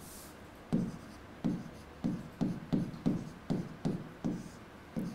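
A pen writing on an interactive whiteboard: a string of about a dozen short taps and strokes, roughly three a second, as a word is handwritten.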